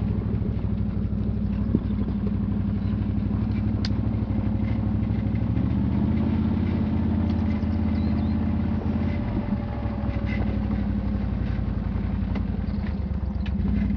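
Quad bike (ATV) engine running steadily while riding a rocky dirt track, its note lifting a little around the middle, with a few sharp clicks and knocks from the rough ground.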